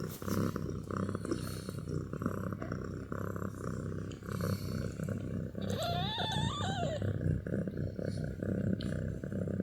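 Cat purring close to the microphone, a steady rapid rumble. About six seconds in, a short wavering high-pitched mew from a kitten rises and falls over it.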